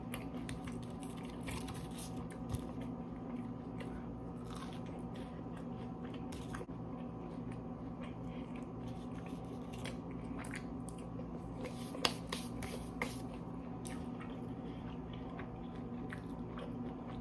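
Close-up mouth sounds of someone biting and chewing crispy fried chicken tenders: soft crunches and wet chewing, with a few sharper crackles, over a steady low hum.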